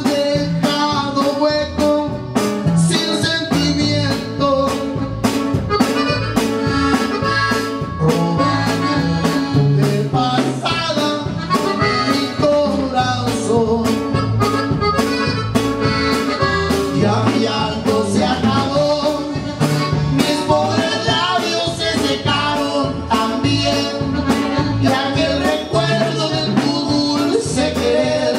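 Live norteño band playing an instrumental passage led by a red Gabbanelli button accordion, over strummed strings and a steady drum beat.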